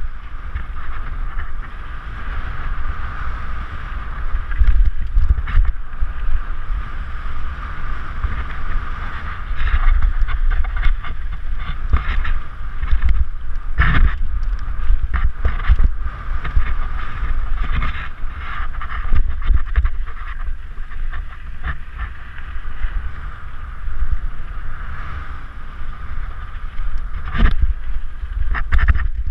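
Wind rushing and buffeting over a helmet-mounted GoPro Hero 3 as a mountain bike descends a rough dirt trail, with the bike rattling and knocking over bumps. There are scattered sharp knocks, the loudest about halfway through and again near the end.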